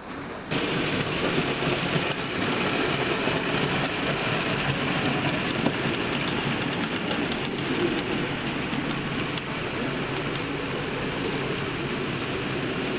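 OO gauge model trains running on the layout's track, a steady rolling rumble and clatter of wheels on rail that comes in sharply about half a second in.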